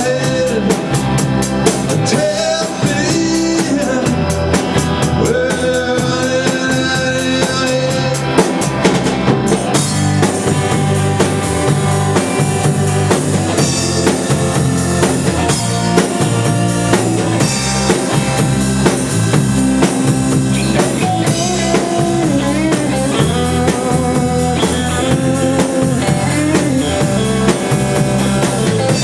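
Band playing rock music live at a sound check: drum kit and guitar.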